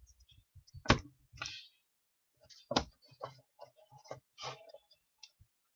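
Light clicks and taps of trading cards and hard plastic card holders being handled on a table, a handful of scattered clicks with two sharper ones about a second in and near three seconds in.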